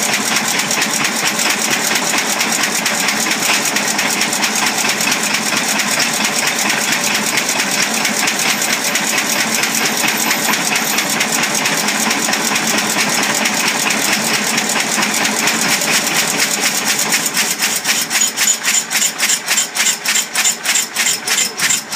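A circa-1920 Fairbanks Morse 6 hp single-cylinder stationary engine running at a steady governed speed of about 375 to 400 RPM, an even rapid beat of firing strokes, not hit-and-miss. In the last few seconds the beats stand apart more sharply, with clear gaps between them.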